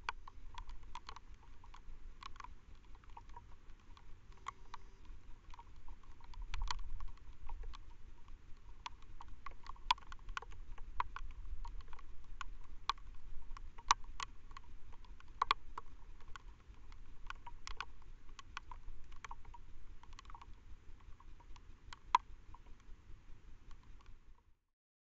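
Trail camera's own night recording: a steady faint hiss and low rumble with many scattered, irregular clicks and ticks, cutting off abruptly near the end.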